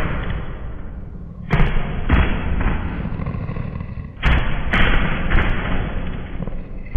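Deep, heavy booming thuds in two pairs, about a second and a half in and again about four seconds in, each followed by a long rumbling decay: a sound-designed recording of a gigantic monster.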